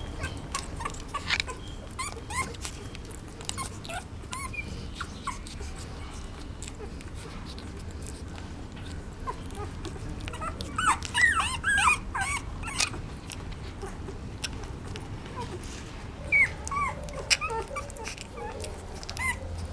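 A dog whining and yipping in short high-pitched calls, with a cluster of them about halfway through and a few more near the end, among scattered clicks.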